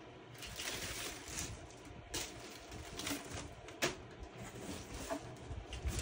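Clear plastic packaging crinkling and crackling as it is pulled out of a cardboard box, with irregular sharp crackles and one louder snap just before four seconds in.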